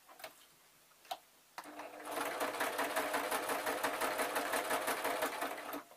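Electric domestic sewing machine stitching a seam through thick layers of stuffed fur fabric, with a fast, even rattle of needle strokes. It starts after a second and a half of quiet broken by a couple of small clicks, runs for about four seconds, and stops just before the end.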